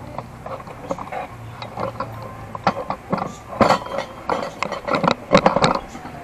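Irregular knocks and clinks of hard objects being handled. They are sparse at first, then louder and closer together through the second half.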